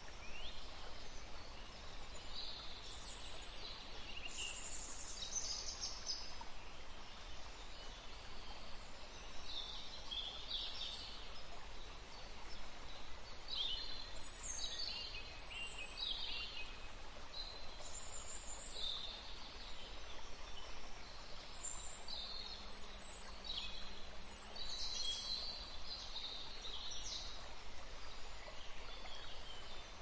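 Songbirds singing outdoors: many short, high chirps and down-slurred notes, overlapping in places, over faint steady background noise.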